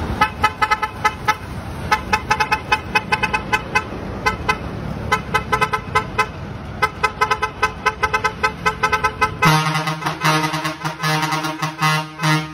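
Truck air horns sounding in rapid short toots, and then, about nine and a half seconds in, a long steady blast of a much deeper horn.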